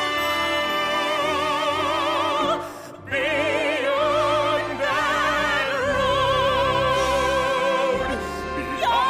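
A man and a woman singing long held notes with wide vibrato over an orchestra, breaking off briefly about three seconds in before the next long sustained phrase: the big finish of a Broadway show-tune duet.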